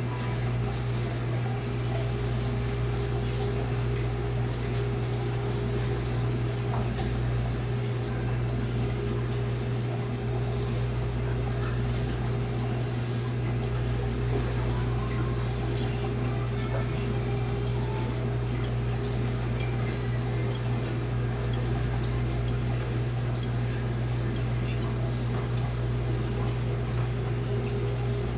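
Knife blade scraping in strokes on a whetstone, a carbon-steel santoku on a 1000-grit Naniwa Pro stone, about one short hiss-like stroke a second. Under it runs a loud, steady low hum.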